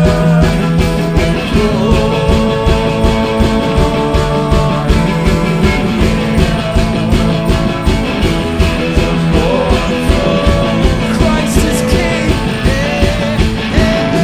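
Live rock band playing an instrumental passage of a Christmas hymn: electric guitars ringing out a melody that slides between notes over a steady drum beat.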